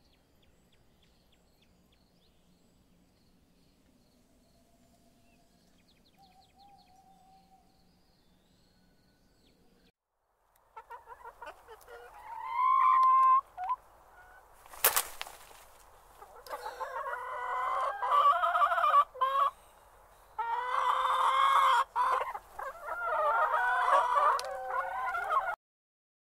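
Near silence with a few faint chirps for about the first ten seconds, then domestic chickens calling loudly: a rooster crowing and clucking in a string of calls that runs almost to the end, with a sharp click about fifteen seconds in.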